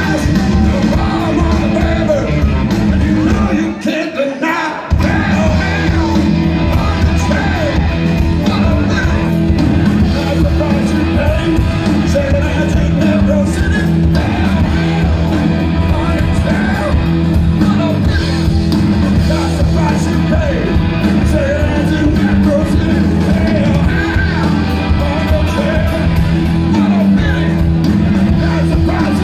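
Hard rock band playing live over a hall PA: electric guitars, bass and drums, with a man singing. About four seconds in, the bass drops away for about a second, then the full band comes back in.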